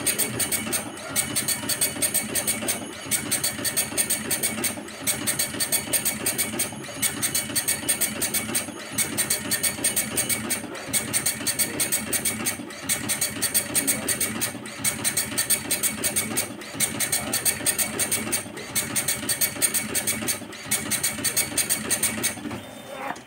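Olivetti PR2 Plus passbook printer's 24-pin dot-matrix print head printing back and forth in rapid rhythmic passes, with a short break about every two seconds. It is printing the test page of its sensor-calibration routine, and it stops just before the end.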